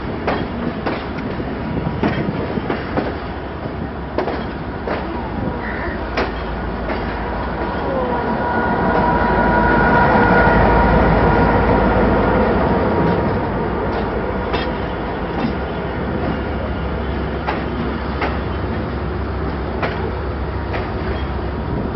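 Passenger train running through a junction, heard from an open coach doorway: a steady rumble with wheels clicking over rail joints and points. Between about 8 and 14 seconds in, a louder drone with a deep rumble swells and fades as the train passes close alongside a diesel locomotive on the next track.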